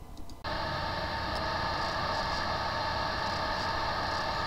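Sound sample of a hard drive with a bad motor IC: a steady hiss with a faint hum that starts abruptly about half a second in and does not change, with no spin-up.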